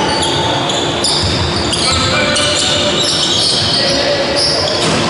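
Basketball game on a wooden court in a large sports hall: a ball bouncing and many short, high shoe squeaks on the floor.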